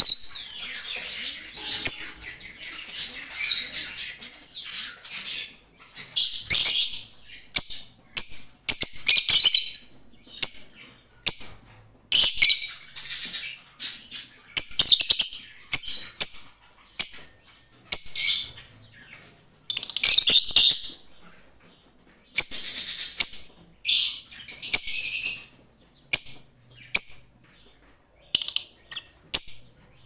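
Fischer's lovebirds giving shrill, high chirping and chattering calls in quick bursts, nearly continuous at first, then in separate bursts with short gaps between, with a few sharp clicks among them.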